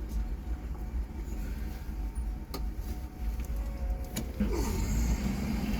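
A vehicle engine idling, a steady low rumble, with a couple of sharp clicks or knocks partway through.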